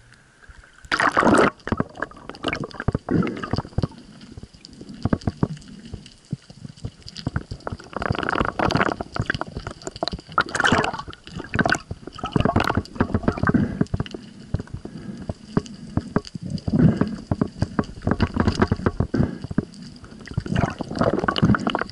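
Water sloshing and gurgling around a submerged action camera, with irregular sharp knocks and rattles as a speared Australian salmon and the spear shaft are handled underwater.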